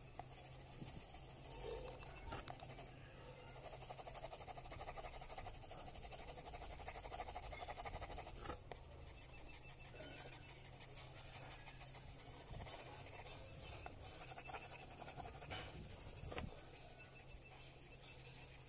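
Yellow coloured pencil scratching across paper as an area of the drawing is coloured in, a quiet, steady scratching that is a little louder for a few seconds around the middle.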